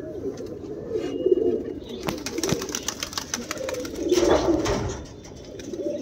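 Domestic pigeons cooing in a loft, a steady low murmur of many birds. Rustling and scraping noises come in about two seconds in, loudest around four seconds in.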